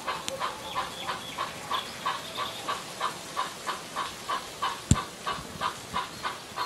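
Sound decoder in a 009 gauge model steam locomotive playing steady exhaust chuffs through its small on-board speaker, about three chuffs a second. A single sharp knock about five seconds in is the loudest sound.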